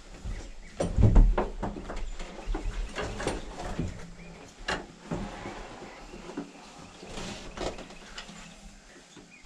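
Irregular knocks, clicks and rustles of gear being handled inside a hunting blind, with a loud low thump about a second in.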